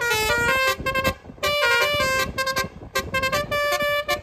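Basuri, a musical multi-trumpet horn mounted on the roof of a Toyota Avanza, playing a tune: several horn notes sound together as held chords that change step by step, with a few short breaks between phrases.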